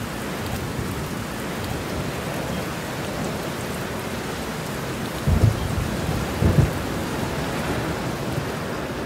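Steady rain falling, with two short low rumbles of thunder about five and six and a half seconds in.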